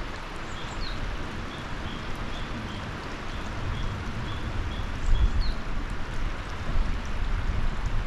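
Clear, shallow mountain river flowing over a stony bed, a steady rushing with a rumbling low end. A bird repeats a short high note about two to three times a second, stopping about halfway, with a couple of brief chirps over it.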